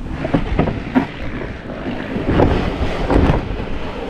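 Wind buffeting the microphone, with low rumbling and several dull knocks.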